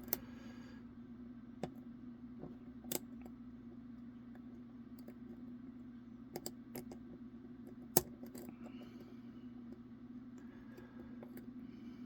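Lock pick and tension wrench working the pins of a pin-tumbler challenge lock: scattered small metallic clicks, a few seconds apart, the sharpest about eight seconds in, over a steady low hum.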